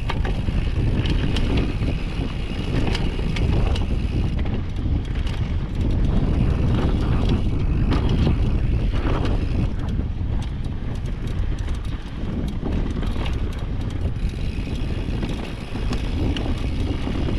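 Downhill mountain bike rolling fast over a rough dirt trail: a steady rumble of tyres and wind buffeting the microphone, with frequent clicks and rattles from the bike over bumps.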